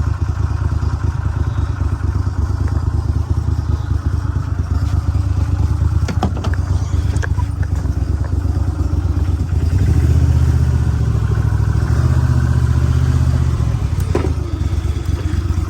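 Boat's outboard motor running steadily at low speed, growing louder about ten seconds in and easing back a few seconds later, with a few light knocks in the boat.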